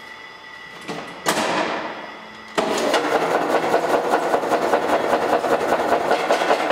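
Rock-crushing roller mill switched on: a click and a clack about a second in, then from about two and a half seconds in a loud, fast, continuous clatter of the steel rollers running. The rollers are worn out of round, with washboard pitting and flat spots.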